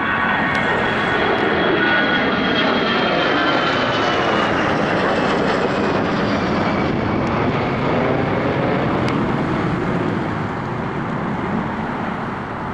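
An aircraft engine running loud and steady, with a faint whine that slowly falls in pitch as it passes. It cuts in suddenly and fades out at the end.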